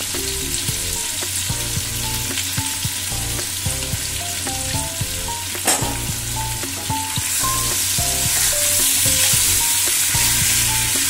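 Boiled potato pieces with turmeric and salt sizzling in hot oil in a nonstick frying pan, the hiss growing louder about seven seconds in as they are stirred with a silicone spatula. A single sharp tap about halfway through.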